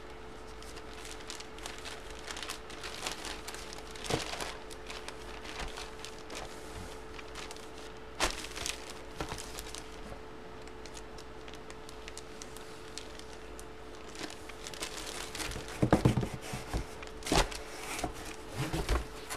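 Clear plastic bag crinkling and rustling as the jersey inside it is handled, with scattered small crackles. A few louder knocks come near the end.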